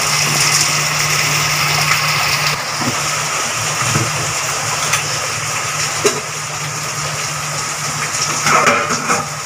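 A steady low hum with an even hiss over it, broken by a few light knocks, and a short cluster of them near the end.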